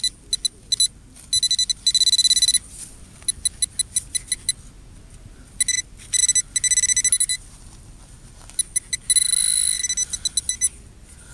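Handheld metal-detecting pinpointer sounding as its tip is worked through a dug plug of soil: a high electronic buzz that comes as quick stuttering beeps and runs into unbroken tones for a second or so at a time, about two and nine seconds in. It signals a metal target close to the tip, here a copper penny in the plug.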